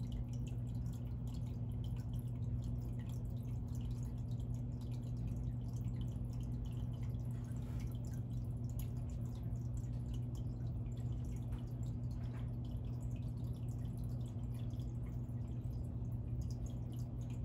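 Saltwater aquarium's circulating water trickling and dripping in many small, irregular drops, over a steady low hum.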